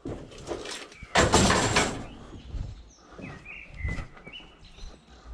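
Scrap sheet-metal van panels being slid and knocked into the back of a van, with one long scraping rush about a second in and smaller knocks after it. A few short bird chirps come in the second half.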